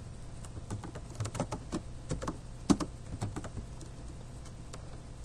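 Computer keyboard being typed on: a quick, irregular run of key clicks lasting about three seconds, as shell commands are entered.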